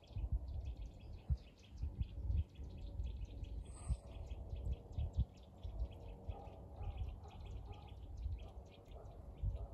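Small songbirds chirping rapidly and steadily, several short high calls a second, over low buffeting on the microphone.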